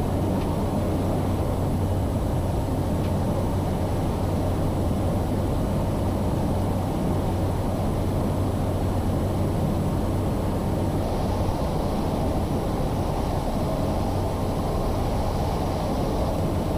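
Cessna 208 Caravan in flight on approach to land, heard from inside the cockpit: its single Pratt & Whitney PT6A turboprop engine and propeller make a steady drone with a constant low hum.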